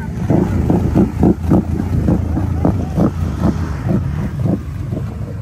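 Can-Am ATV engine revving hard while the quad churns through deep mud and water, with a heavy low rumble that pulses unevenly about three or four times a second.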